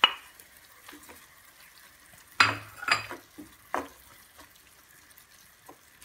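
Wooden spoon scraping and knocking against a bowl and a cream-coloured coated pot as grated tomato is stirred into sautéing peppers and peas, over a faint sizzle. A handful of sharp strokes, the loudest two about two and a half and three seconds in.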